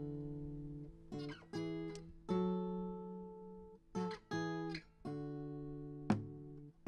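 Acoustic guitar playing slow strummed chords, each left to ring out for about a second before the next is struck.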